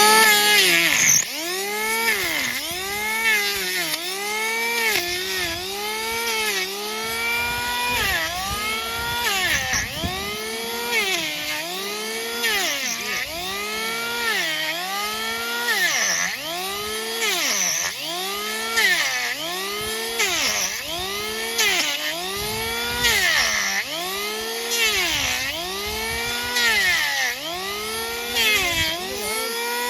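Hand-held electric power tool grinding down a donkey's hoof horn. Its motor whine drops in pitch each time it bites into the hoof and climbs back as the load eases, over and over, about every second and a half.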